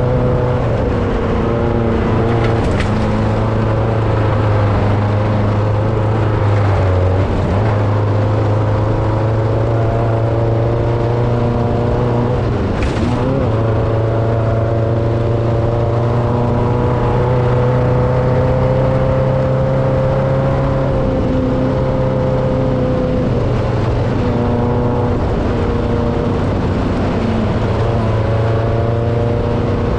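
Off-road race vehicle's engine running steadily under load at speed, its pitch drifting slowly up and down, with two brief knocks, a few seconds in and near the middle.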